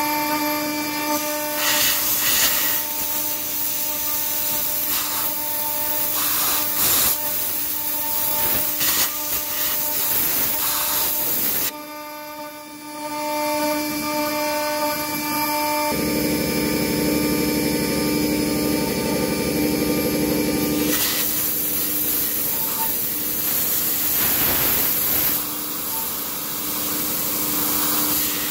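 CNC milling machine spindle running at high speed, a steady multi-tone whine, as a fine engraving cutter carves a metal die with a scraping, hissing cutting noise. The level dips briefly a little before the middle, and a louder low rushing noise joins for about five seconds after that.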